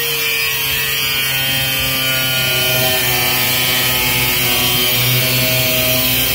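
Angle grinder with a cutting disc running through the sheet-steel panel of a van's rear door: a steady high whine over hiss, its pitch wavering slightly as the disc loads up in the cut.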